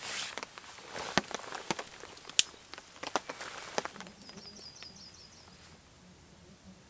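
Campfire kindling crackling in sharp snaps and pops for the first few seconds, the loudest about two and a half seconds in, after a brief hiss at the very start. Near the middle a songbird gives a short trill of about eight quick high chirps.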